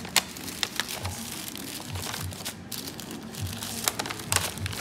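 Paper bag crinkling and crackling as a hand handles it, in irregular bursts with the sharpest crackles near the start and near the end.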